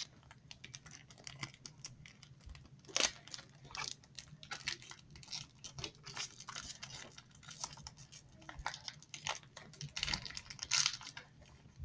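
Plastic toy packaging of a Trash Pack being torn open and crinkled by hand: irregular crackling and rustling, with louder tears about three seconds in and again near the end.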